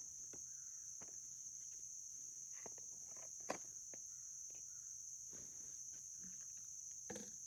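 Steady high-pitched drone of an insect chorus, with a few scattered knocks and clicks of gear being unpacked and handled, the sharpest about three and a half seconds in.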